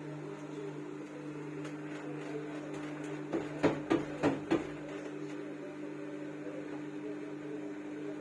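Samsung washing machine running with a steady motor hum; about halfway through, a quick run of about five sharp knocks. This is the noise the owner reports as a problem, which the service calls normal.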